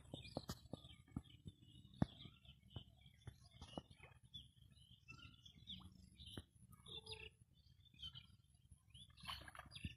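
Faint outdoor birdsong: scattered short bird chirps, mixed with a few sharp clicks, the loudest about two seconds in.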